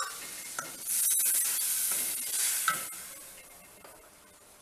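Tamarind water poured into a hot steel kadai of oil-fried masala, sizzling loudly from about a second in and dying away over the next few seconds as the liquid settles.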